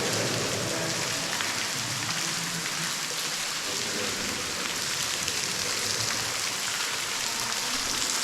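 Steady rushing hiss of falling, splashing water, like heavy rain.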